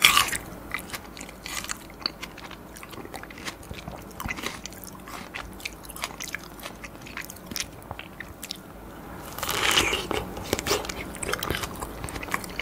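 Biting into a large fresh strawberry, then wet chewing with many small clicks. A second juicy bite comes about ten seconds in, followed by more chewing.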